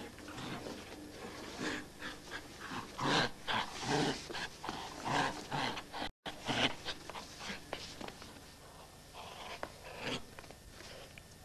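Dachshund panting hard in short, uneven breaths. The sound cuts out for a moment a little past the middle.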